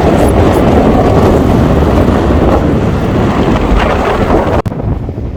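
Strong wind buffeting the microphone over waves washing on the lakeshore, a loud, steady rushing. It cuts off suddenly near the end, leaving a quieter wind.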